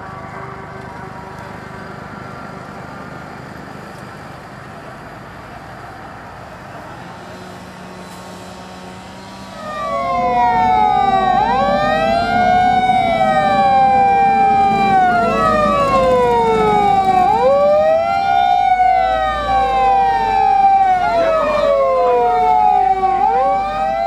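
Low vehicle rumble until about ten seconds in, when emergency sirens switch on loudly. Several sirens overlap: one wails up and holds a high note, while others sweep down again and again every two to three seconds, over the low rumble of a heavy vehicle moving off.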